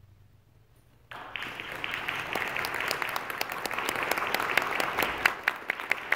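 Audience applause breaking out about a second in, after a moment of near silence, and building, with sharp individual claps standing out near the end.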